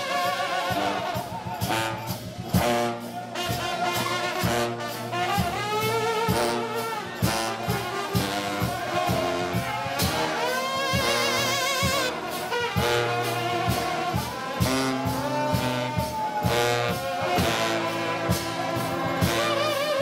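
Trombone shout band playing a lively gospel tune: massed trombones with a sousaphone underneath, over a steady driving beat. About ten seconds in, a high note rises above the band with a fast wavering shake.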